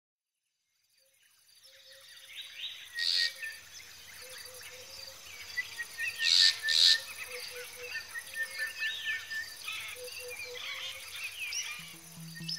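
Nature ambience fading in from silence: a steady high insect trill with many birds chirping and calling, and three louder short calls. Low music notes come in near the end.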